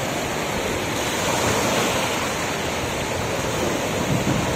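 Sea surf: small waves breaking and washing up a sandy beach in a steady rush.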